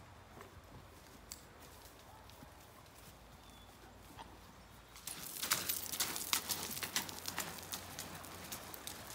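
Horses walking, first faint hoofbeats on soft ground. About halfway in, louder, dense clattering and crunching of hooves on loose river gravel and stones.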